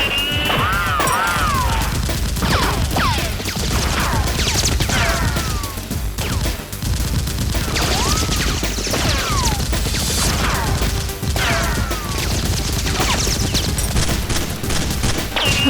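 Rapid volleys of gunfire sound effects with repeated falling whistling sweeps, over background music with a steady low bass.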